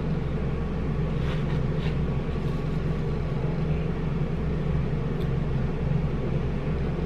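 A steady low hum runs throughout. A couple of faint, brief scraping or mouth sounds come about a second in, while a fork of food is being eaten.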